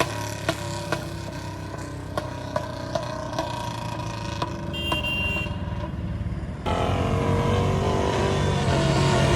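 Royal Enfield Bullet Classic 350's single-cylinder engine running through a narrow-mouthed Long Panjab exhaust pipe, with sharp irregular pops from the exhaust. About two-thirds of the way through, the exhaust note suddenly gets louder and stays up.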